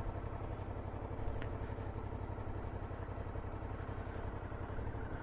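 Suzuki V-Strom motorcycle engine running steadily, a low even note, on a slow ride down a narrow lane.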